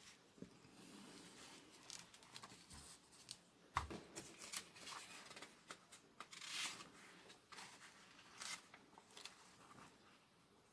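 Faint handling noises as comic books and their packaging are moved about: scattered light clicks and short rustles, with a sharper knock a little under four seconds in.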